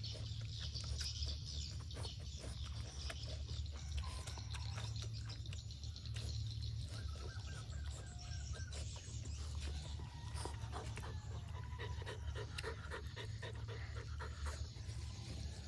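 A dog panting steadily over a low hum, mixed with small clicking eating sounds as chicken wings are bitten and chewed.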